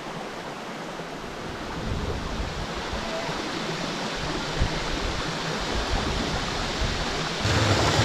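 Steady rush of river water running over rocks, growing a little louder toward the end.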